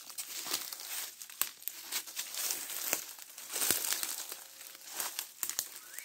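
Dry grass and dead leaf litter rustling and crackling in irregular bursts as the vegetation is pushed through.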